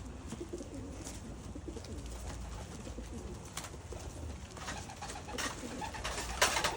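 Domestic pigeons cooing in a loft, with a few sharp clacks and rustles, more of them in the second half and the loudest about six and a half seconds in.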